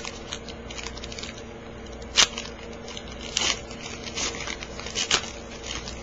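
Plastic trading-card pack wrapper crinkling in a handful of short, sharp rustles as a pack of cards is opened and handled, the loudest about two seconds in.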